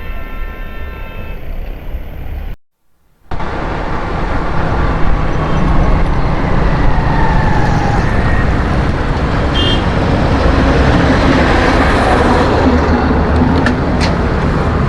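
A vehicle horn held steadily for about a second and a half, then a brief cut to silence. After that comes loud, steady road noise: engines and traffic heard while riding a motorcycle through the streets.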